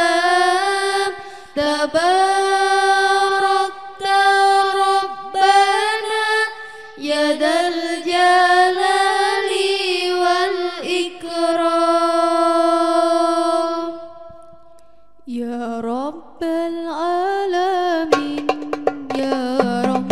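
Female voices singing a sholawat (Islamic devotional song) unaccompanied, in long held notes with sliding ornaments and a short break about fourteen seconds in. Near the end, hand-struck frame drums (rebana) begin to come in under the singing.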